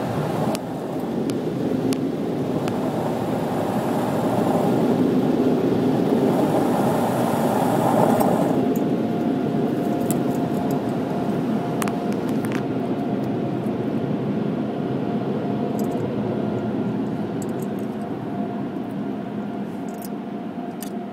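Automatic car wash machinery heard from inside the car: a steady rushing noise that swells over the first several seconds. About eight seconds in the hiss drops off and a steady whine carries on, with a few faint clicks.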